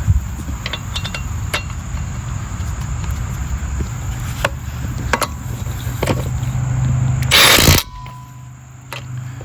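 Scattered clicks and knocks over a steady low rumble, with one short loud burst of noise about seven seconds in, after which the rumble stops. Crickets chirp steadily in the background.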